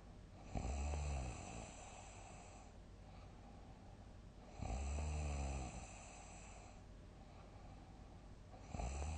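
A sleeping person snoring loudly: three deep, low-pitched snores about four seconds apart, each lasting about a second, the third starting near the end.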